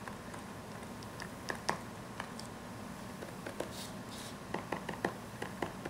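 Light plastic clicks and clatter of marker pens being handled and set down among a pile of other markers, scattered at first, then several in quick succession near the end.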